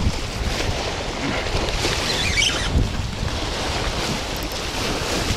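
Strong wind buffeting the microphone over small waves splashing and breaking against a sloping concrete lake shore.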